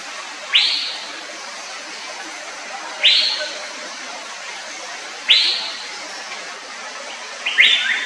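Male Asian fairy-bluebird giving its courtship call: a short, sharp rising whistle repeated four times, about every two and a half seconds, the last one doubled, over a steady forest hiss.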